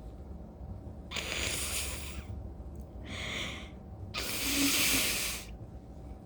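A person with allergies breathing heavily three times, each breath a long, voiceless hiss; the middle breath is short and the last is the loudest.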